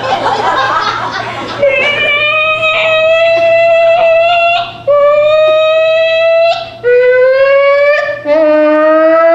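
A performer's voice making improvised sound effects. A rough, jumbled burst of noises gives way to four long, held whining tones, each rising slightly in pitch, with short breaks between them. A second, lower tone joins the last one.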